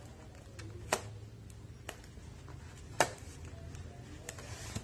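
Hands handling and picking at a taped cardboard box, with two sharp clicks about a second and three seconds in and a few lighter ticks, over a low steady hum.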